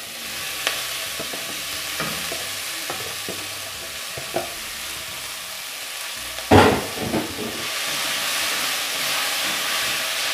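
Chopped collard greens sizzling as they sauté in a hot aluminium pot, stirred with a wooden spoon that knocks against the pot a few times. A louder knock comes about six and a half seconds in, and the sizzle grows a little stronger in the second half.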